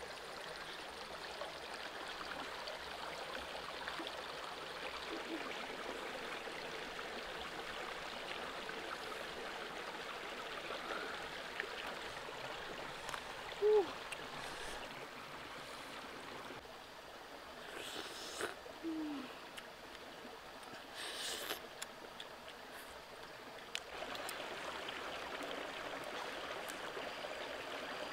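A rocky forest stream running, a steady rushing wash of water. About halfway through there is a brief falling call, the loudest moment, followed a few seconds later by a fainter one and a couple of short crackles.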